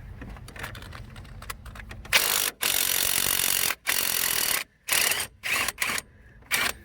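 Impact gun hammering a front shock-absorber mount nut loose on a 2001 Chevy Silverado 1500, spinning it off without the shock being held: a long burst of rattling about two seconds in, then several short bursts as the nut runs off the stud.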